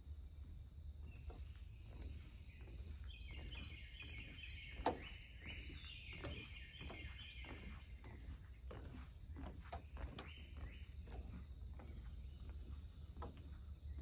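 Footsteps on a wooden boardwalk, about two a second, with one sharper knock about five seconds in. A bird calls in two quick runs of short repeated notes over a steady low rumble.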